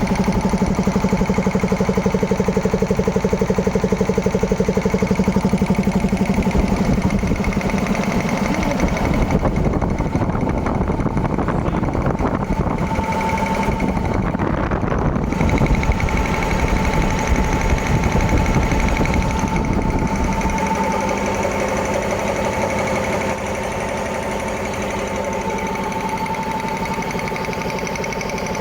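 Elgi 5 HP industrial reciprocating air compressor running, its pump making a steady, rapid chugging. About two-thirds of the way through, the low chugging lightens and a steadier higher hum comes in.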